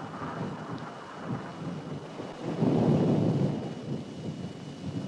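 Low, rough rumbling like thunder, swelling about two and a half seconds in and then fading.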